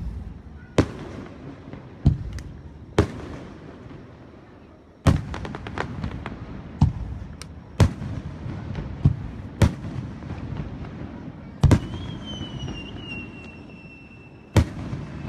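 Aerial firework shells bursting overhead: about ten sharp bangs a second or two apart, each with an echoing tail, with smaller crackling pops between them.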